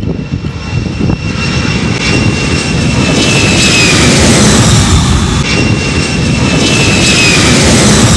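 A loud, steady rushing, engine-like noise in the manner of a jet aircraft starts suddenly. A high whine in it falls slightly in pitch twice, about four seconds apart.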